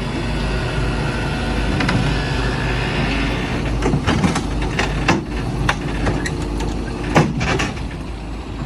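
An engine running steadily, with a series of sharp knocks and clicks over it, most of them in the second half.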